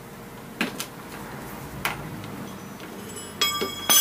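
Two sharp clicks of small metal parts being handled as the top screw and cap go onto the motorcycle's steering head. Near the end, a bright, bell-like ringing of several steady high tones sets in.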